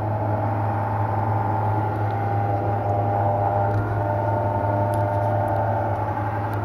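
A steady mechanical hum with a whirring tone that drifts slowly in pitch, like a machine or motor running.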